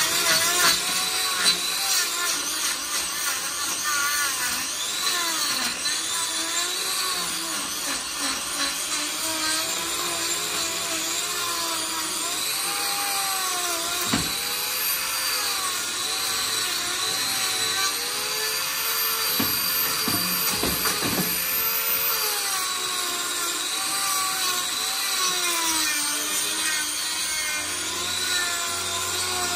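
Hand-held angle grinder fitted with a hoof-trimming disc, running steadily while it cuts and shapes a cow's hoof horn. Its pitch keeps dipping and recovering as the disc bites into the hoof and eases off. A few sharp knocks come about halfway through.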